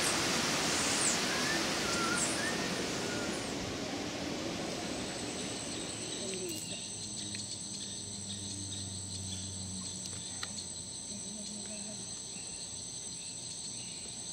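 Tropical rainforest ambience: at first an even hiss with a few short bird chirps. About five seconds in, it gives way to a steady high insect drone with faint scattered bird notes.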